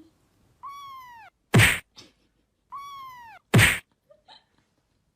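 A cat meowing twice, each meow a falling call that is followed at once by a short, loud, sharp noisy burst.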